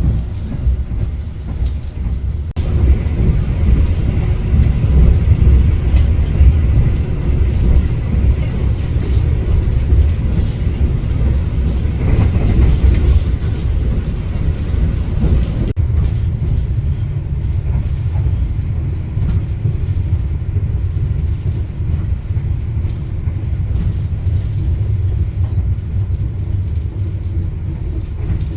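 Passenger train running at speed, a steady low rumble of the carriage on the rails heard on board. It grows louder and harsher a couple of seconds in, then drops suddenly to a steadier, quieter rumble about halfway through.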